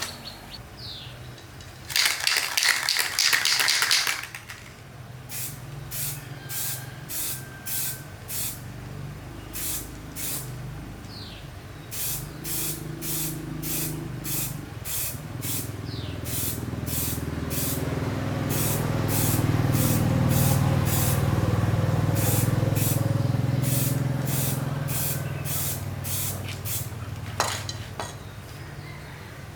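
Spray hiss: one long burst about two seconds in, then a long run of short, evenly spaced spray puffs about twice a second. Under the puffs runs a low machine hum that grows louder midway and then fades.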